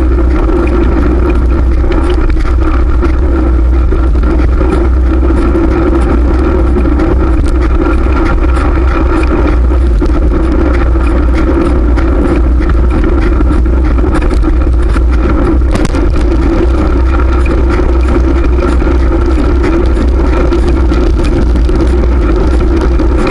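Riding noise on a fixed-gear bicycle: a loud, steady rush with a heavy low rumble that runs without a break.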